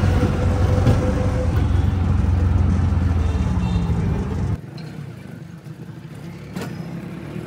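Auto-rickshaw engine running with a steady low drone, heard from inside the passenger cab as it drives along the street. About four and a half seconds in it cuts off abruptly to quieter outdoor ambience, with a single sharp knock near the end.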